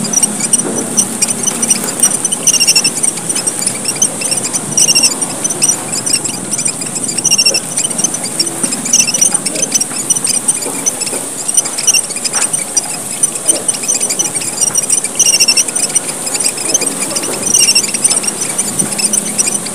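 A busy flock chorus of emprit merah papua (red pipit finches) chirping with high, thin calls, the pattern coming round again about every two and a half seconds. It is a bird-lure recording, played to call in wild finches.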